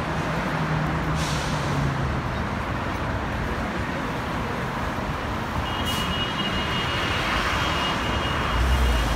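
Steady street traffic noise with a low rumble, with two short hisses. A thin, steady high tone enters a little before the six-second mark and holds.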